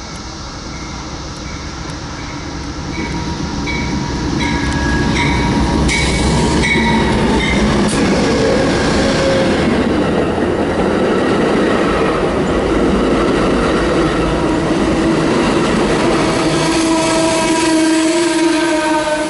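Amtrak P42DC diesel locomotive and its bilevel Superliner passenger train approaching and passing close by. A bell dings about every 0.7 s over the first several seconds. The rumble and rush of the train swells over a few seconds and holds loud as the cars roll past, and a steady squealing tone from the train comes in near the end.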